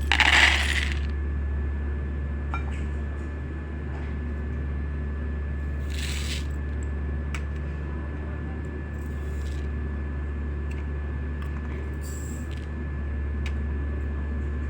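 Dried corn kernels and grains poured into a bowl, a short rattling rush at the start, followed by a few brief rattles and clicks over a steady low hum.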